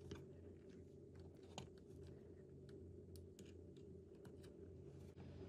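Faint, scattered light clicks and ticks of small drone parts and tools being handled, over a low steady hum.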